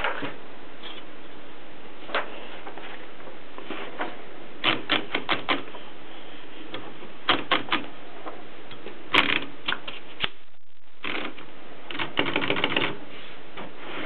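Gossen Tippa portable typewriter: short runs of key strikes, a few keystrokes at a time with pauses between, ending in a quicker run near the end, over a steady background hiss.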